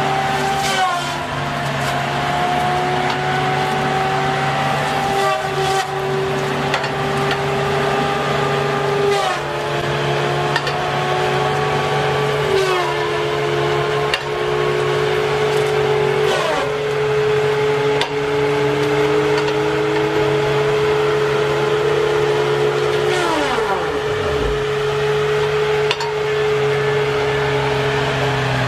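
High-revving chainsaw engine under a steady lower drone, its pitch sagging several times as the chain comes under load in wood and picking up again, with one steep fall in pitch near the end.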